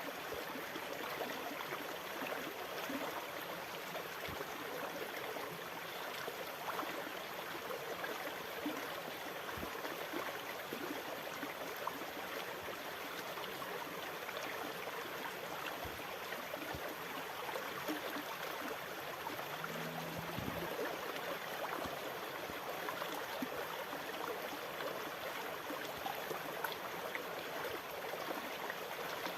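Sea water washing steadily, an even rush with no distinct wave breaks. A brief low hum sounds about two-thirds of the way through.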